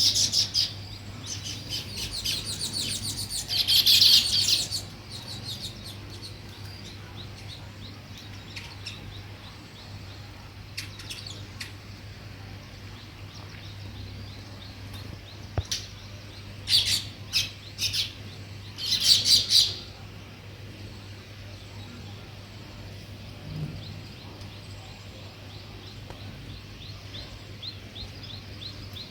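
House sparrows chirping in bursts of rapid, high chirps, loudest in the first few seconds and again about two-thirds of the way through, with a faint run of repeated chirps near the end.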